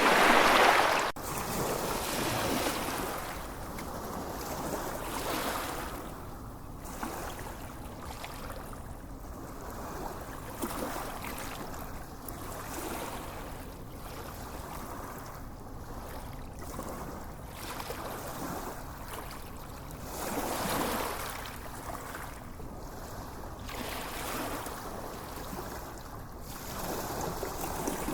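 Small, gentle waves washing onto a sandy beach, swelling and falling back every few seconds. A louder wash cuts off abruptly about a second in.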